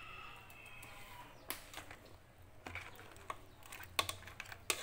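A few scattered sharp clicks and knocks from a serving spoon against the cooking pot and a ceramic plate as seafood is dished up, the loudest near the end.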